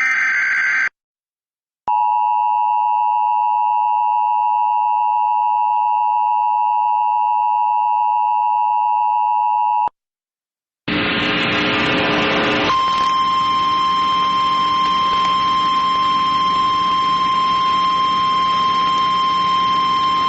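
Emergency Alert System alarm. A brief electronic data burst comes first. The two-tone EAS attention signal then sounds steadily for about eight seconds and cuts off. After a second's gap and a burst of radio static, a single steady NOAA Weather Radio warning tone plays over hiss, the lead-in to a tornado warning broadcast.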